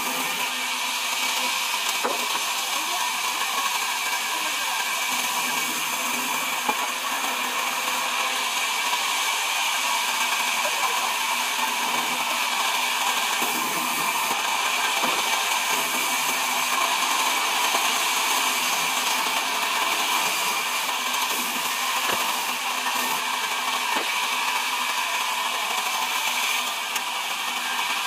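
Large sawmill band saw running with a steady whine and hiss as a wooden plank is fed through its blade.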